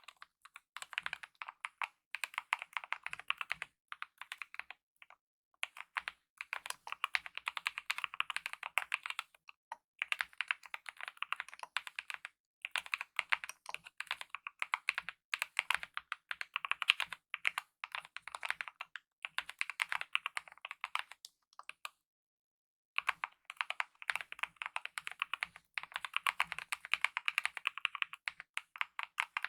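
Fast continuous typing on a mechanical keyboard with lubed optical linear red switches and DSA-profile keycaps: dense runs of keystroke clacks in bursts of a few seconds, broken by brief pauses, one of about a second some three-quarters of the way through.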